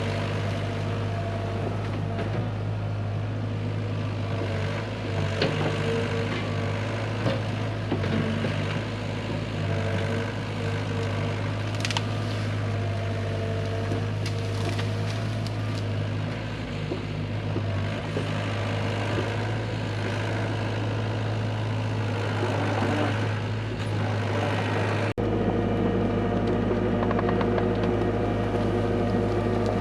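Hyundai HX85A excavator's diesel engine running steadily under work, with a few short knocks and cracks. The engine note changes abruptly about 25 seconds in.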